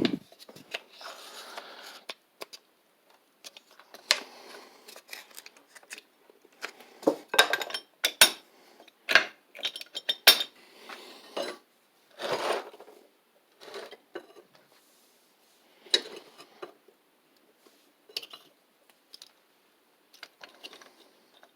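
Small metal engine parts and hand tools clinking and knocking at irregular intervals, with a few short scrapes, as a kickstart pulley assembly is worked loose on the crankshaft of a Briggs & Stratton WMB engine.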